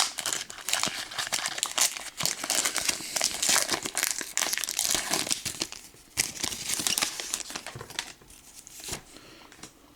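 Crinkling and tearing of a Pokémon TCG XY Breakpoint booster pack's foil wrapper as it is ripped open, a dense run of crackling that thins out about eight seconds in.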